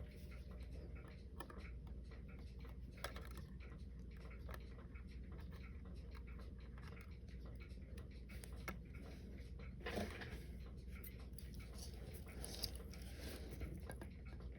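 Faint, scattered small clicks and taps of tools handling a watch during disassembly, with one slightly louder knock about ten seconds in, over a steady low hum.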